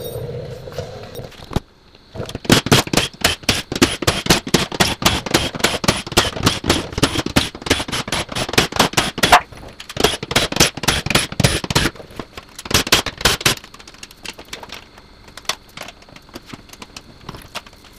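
Rapid clattering clicks from a tool backing out the 10 mm bolts on a battery pack cover. The clicks start about two seconds in, run thick for about ten seconds, come back in one short burst, then thin to scattered clicks near the end.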